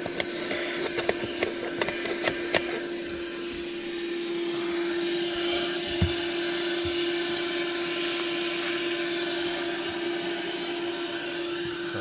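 Portable 12-volt car vacuum cleaner running with a steady motor hum and suction rush as its nozzle works over cloth car seats. Sharp clicks come in the first three seconds, and there is a single knock about six seconds in.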